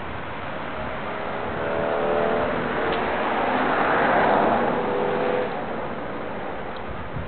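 A car passing by: engine hum and tyre noise build up, are loudest about four seconds in, and fall away quickly about a second later.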